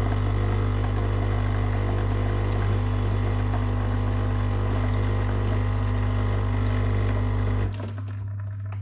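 Nescafé Dolce Gusto capsule machine's pump buzzing steadily while it brews a Nesquik capsule, the chocolate drink streaming into a glass mug. The pump cuts off near the end, leaving a fainter hum.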